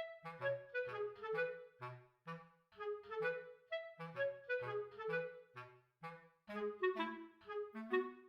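Background music: a bouncy melody of short, separate pitched notes over bass notes, at an even beat with brief pauses between phrases.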